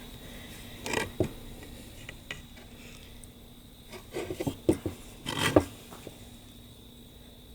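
Light clicks and short scraping taps of a metal drill bit being worked by hand into a pilot hole in a piece of wood, in a few scattered bursts.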